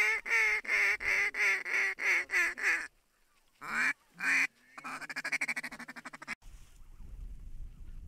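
Snow goose calls blown by the hunters at an incoming flock: a rapid run of loud, high honks, about three to four a second, then two single honks and a faster buzzy chatter. Near the end the calling cuts off to wind noise.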